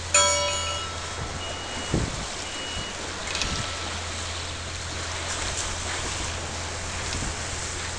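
Wind and water rushing past a boat under way, over a steady low hum. A short electronic chime of several tones sounds at the very start, and two brief high beeps follow a second or two later.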